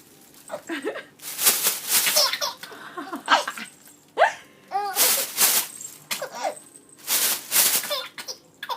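A baby laughing and squealing in short bursts while a plastic bag is rustled and swished, the bag's crinkling coming in several loud rushes between the laughs.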